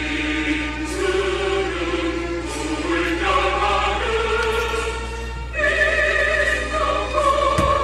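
Background music: a choir singing slow, held notes in a solemn, classical style.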